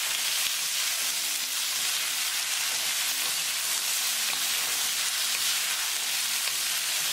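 Chicken and asparagus sizzling in oil in a wok, a steady hiss, while a wooden spatula stirs and tosses the pieces with faint scrapes and ticks.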